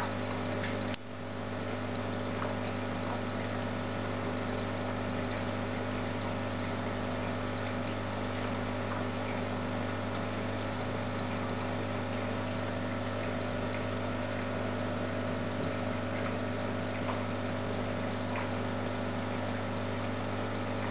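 Aquarium pump humming steadily, with a faint wash of moving water. There is a brief click about a second in.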